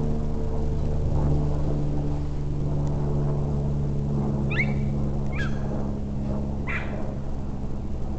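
Jack Russell terrier giving three short, high yaps about halfway through, over a steady low hum.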